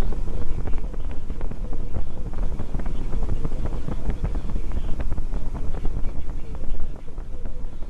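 A car driving at highway speed: steady low road and wind rumble, with crackling wind buffeting on the microphone.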